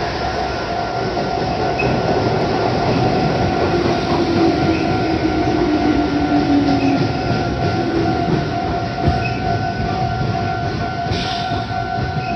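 A Meitetsu Nagoya Main Line train passing over the level crossing, loud, while the crossing's electronic warning bell rings steadily. A lower tone glides downward from about four to seven seconds in.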